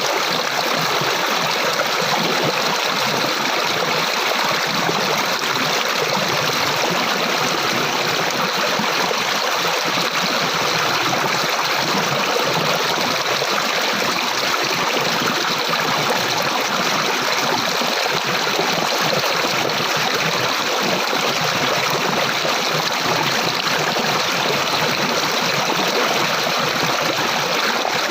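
Water flowing steadily in a stream, a constant even rush and trickle that does not change.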